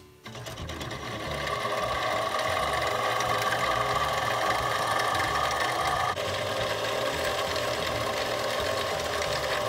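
Harbor Freight mini metal lathe spinning up and then running steadily, its motor and gear train giving a steady whine. A hand file is held against the spinning aluminium bushing to deburr and radius its edges.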